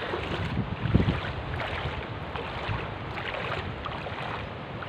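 Wind buffeting the microphone over open water, with water lapping and sloshing in a steady rush.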